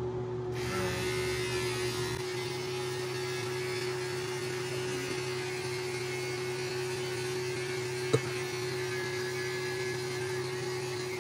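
Electric hair trimmer running with a steady buzz while it is held to the upper lip, cutting mustache hair. A single sharp click about eight seconds in.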